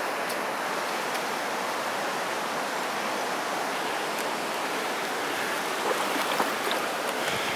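Shallow river running over stones in a riffle: a steady, even rush of water.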